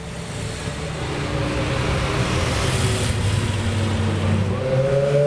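Car engines running in street traffic, a low steady engine hum building in level, with one engine's note rising and then falling near the end as it revs or passes.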